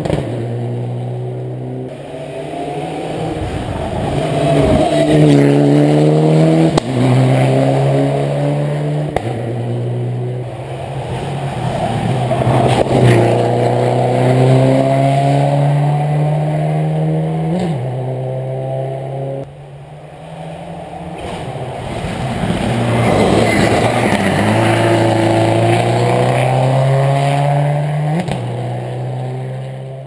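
Rally car engine revving hard out of sight, its pitch climbing and falling as the driver accelerates and lifts through the stage's bends. It swells loudest about 5, 13 and 24 seconds in and drops back around 10 and 20 seconds.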